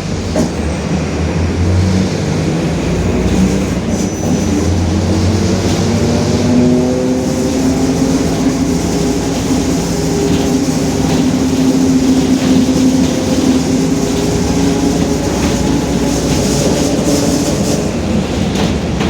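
Mercedes-Benz OF-1721 city bus under way, heard from inside: diesel engine running with a growling whine from the drive differential, whose pitch rises slowly as the bus gathers speed and then holds steady. Faint body rattles run through it.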